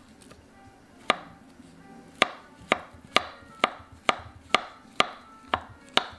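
Kitchen knife slicing a banana on a wooden cutting board: a sharp knock of the blade on the board with each slice, about two a second, starting about a second in.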